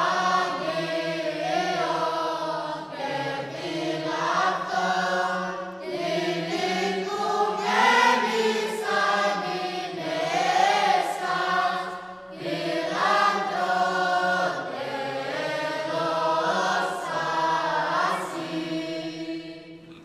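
Orthodox liturgical chant sung by a choir, a moving melody over a steady held low note, fading out near the end.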